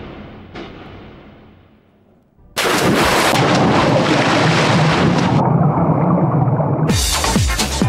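Dramatic sound effects from a documentary's opening sequence. A fading sound dies away, then about two and a half seconds in a sudden loud rumbling noise starts like thunder or gunfire. It turns muffled for a moment and opens up again near the end with falling sweeps.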